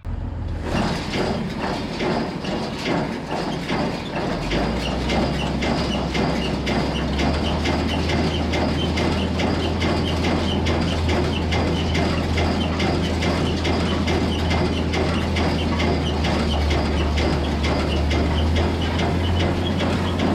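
Tractor engine drone under the rapid, rhythmic mechanical clatter of a Claas Rollant 85 round baler at work. The low engine drone gets heavier about four seconds in.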